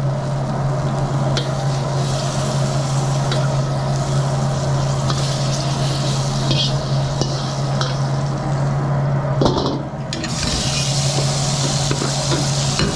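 Metal spatula scraping and clinking in a carbon-steel wok as a stir-fry is scooped out onto a plate, over the steady hum of a wok range. About ten seconds in, tap water pours into the hot wok with a loud hiss.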